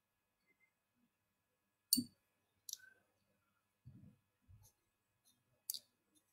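Faint, scattered handling noises from painting at a desk: three sharp light clicks and a couple of soft, dull knocks, irregularly spaced with quiet between them.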